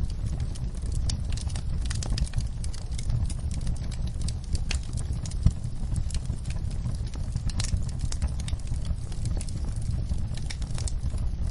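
Log fire burning in a fireplace: a steady low rumble of flames with irregular crackles and pops from the logs, one sharper pop about halfway through.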